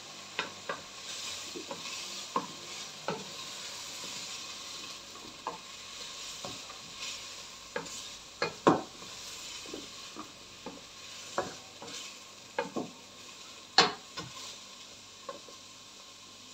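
Meat and onions sizzling in an enamel pot while a wooden spoon stirs them: a steady frying hiss broken by irregular knocks and scrapes of the spoon against the pot, the loudest knocks about halfway through and again later on.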